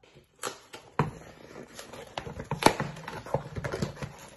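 Cardboard shipping box being handled on a wooden tabletop: a string of taps, knocks and rustling scrapes, the sharpest about two and a half seconds in.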